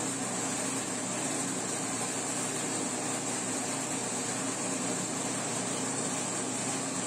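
Arenas grain mill (molino) running steadily, its motor humming as it grinds roasted cacao beans, rice and cinnamon into a coarse meal.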